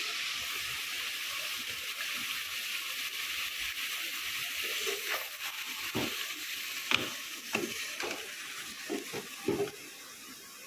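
Chicken, onion and tomato with spices sizzling as they fry in a pan, the hiss slowly dying down. From about halfway, the mixture is stirred, and a spoon clicks and knocks against the pan several times.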